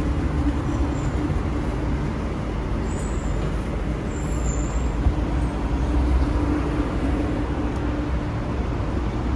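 Steady low rumble of road traffic with a constant hum running through it.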